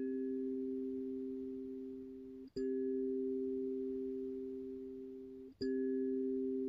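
Hokema kalimba: two notes plucked together and left to ring, fading slowly, then struck again twice, about every three seconds.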